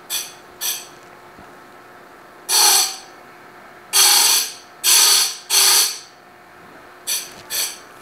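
Diamond-tipped dressers scraping against the spinning stone of a Simington 451C square-grind chainsaw-chain grinder in about eight short rasping bursts, with the grinder motor humming steadily between them. The stone is being dressed back to its square profile.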